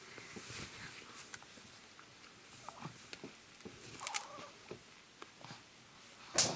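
Soft rustling and handling of a toddler's clothing as socks are pulled onto her feet, with scattered small clicks and a faint short vocal sound about four seconds in. Near the end a single sharp smack stands out as the loudest sound.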